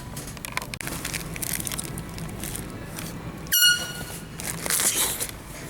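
Handheld canned air horn giving one short, high-pitched blast a little past the middle, over a steady background hum.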